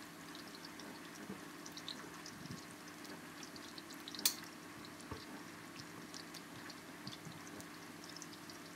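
Chopped garlic and shallots frying gently in oil in a wok, with faint scattered sizzling crackles over a low steady hum. One sharp click about four seconds in.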